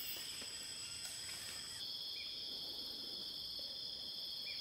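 Steady high-pitched drone of forest insects in several even tones. About two seconds in, the highest tone drops out and the lower ones grow stronger, with a few faint short chirps over the drone.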